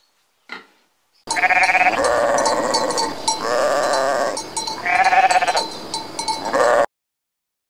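A short pig grunt about half a second in, then sheep bleating: several loud, quavering bleats in quick succession that cut off suddenly near the end.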